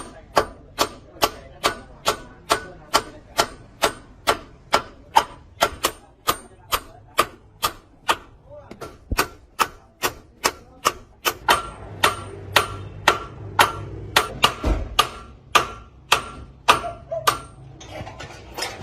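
Steady hammer blows, about three a second, each with a short ring, as in hammering metal during the truck wheel-bolt repair. A low hum joins about two-thirds of the way through.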